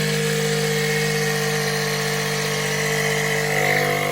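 Portable air inflator's small compressor running steadily, pumping air through the Schrader valve into a boiler expansion tank to force its water out of the drain.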